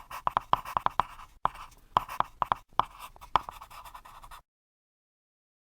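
Handwriting on a surface: scratchy strokes with sharp taps, stopping abruptly about four and a half seconds in.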